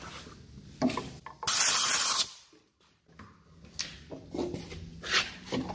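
A short, loud hiss of blown air, about two thirds of a second long, a second and a half in, then the sound cuts out completely for under a second. A few light knocks of handling come before and after.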